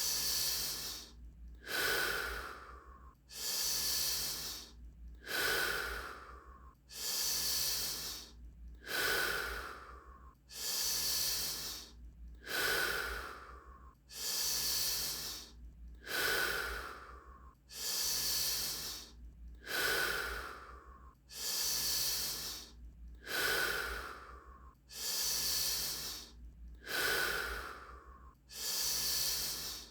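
Wim Hof method power breathing: deep, forceful breaths in a steady rhythm, about one full breath every two seconds, each a loud rush of air. A steady low hum runs underneath.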